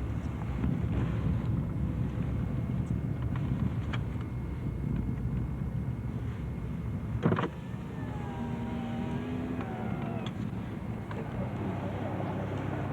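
Car driving on a snowy road, heard from inside the cabin: a steady low engine and road rumble, with one sharp click about seven and a half seconds in.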